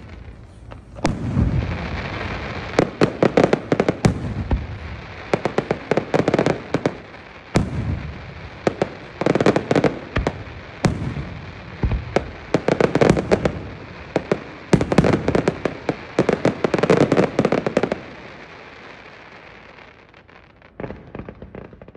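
Aerial fireworks display: clusters of rapid crackling bangs come about every two seconds, then thin out and fade near the end.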